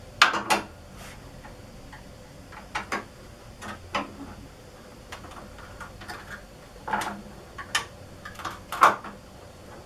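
Flathead screwdriver prying at the metal edge of an RV door frame to seat a lock striker: about ten irregular sharp metallic clicks and scrapes, the loudest just after the start and about a second before the end.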